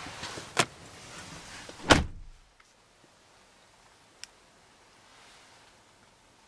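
Front passenger door of a 2013 Kia Soul pulled shut with one solid thump about two seconds in, after a sharp click. The outside background then drops away to the hush of the sealed cabin, with one faint tick later.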